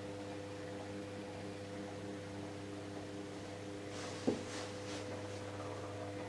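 Steady electrical hum with a few faint steady tones above it, and a single short click about four seconds in.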